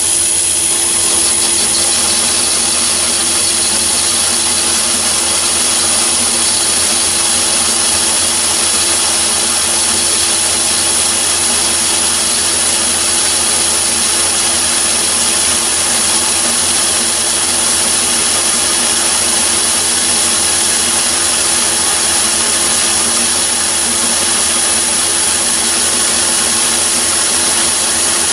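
Myford ML7 lathe running steadily while turning down the diameter of a steel shaft, the cutting tool taking a continuous cut. The sound is a constant, even machine noise with a steady hum.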